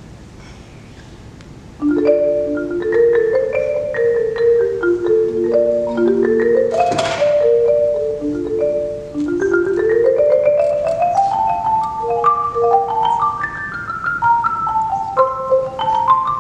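Concert marimba played with mallets: after a short quiet, fast runs of notes start about two seconds in, climbing in a long rising run around ten seconds in. A single sharp noisy hit sounds about seven seconds in.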